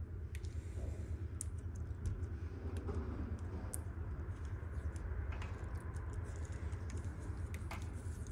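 Light, irregular clicking and rustling of plastic-insulated wires and connectors of a wiring harness being handled and sorted, over a steady low hum.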